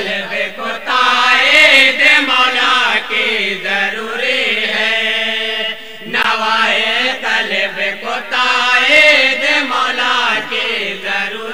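Unaccompanied naat chanting: wordless sung vocal lines with long wavering notes, and a brief break about six seconds in.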